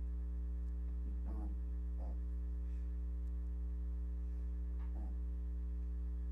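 Steady electrical mains hum with its buzzing overtones, running unchanged throughout. A few faint, short sounds come through it about a second in, at two seconds and near five seconds.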